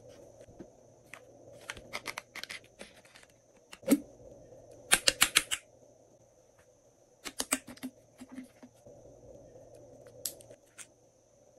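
Sharp clicks and taps from hands handling small plastic items, with a quick run of loud clicks about five seconds in and a few scattered ones near the end.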